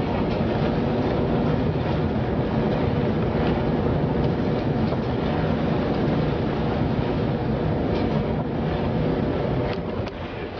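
Steady loud rumble of storm wind and heavy seas breaking against a ship's bow, with a low drone underneath. It dips briefly near the end.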